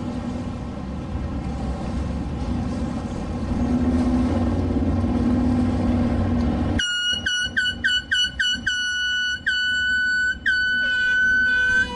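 A low steady rumble of boat motors, then about seven seconds in a high-pitched boat horn gives a quick string of about a dozen short toots before a long held blast. A second, lower-pitched horn joins near the end.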